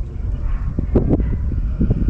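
Wind rumbling on the microphone, with footsteps through dry grass and brush: several short rustling steps.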